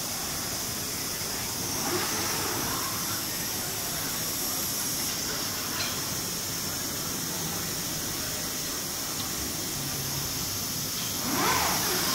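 Steady hiss of machinery and hall noise, with brief whirring sweeps from the gantry robots' linear axes moving; the clearest comes near the end, a quick rise and fall in pitch as a gantry arm carries the basketball.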